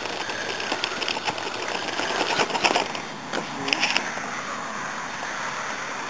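Spinning fishing reel being cranked fast to bring in a hooked fish, a rapid run of clicks that stops about four seconds in.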